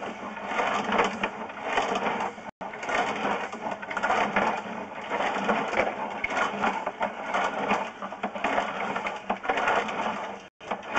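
Sewer inspection camera's push cable being fed quickly into the line, a continuous irregular rattle and clatter of the cable and reel, cutting out briefly twice.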